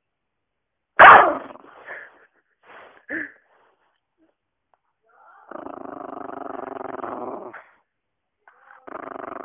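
Border terrier giving one loud, sharp bark about a second in, followed by a few shorter, quieter sounds. Then it growls steadily for about two seconds, and starts growling again near the end.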